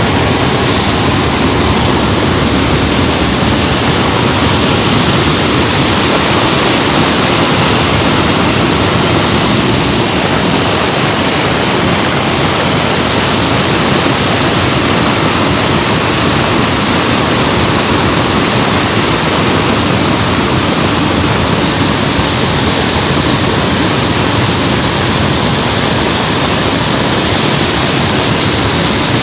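Loud, steady rushing noise inside a C-130 Hercules transport's cabin in flight during a paratroop drop: the turboprop engines and airflow merged into one even din.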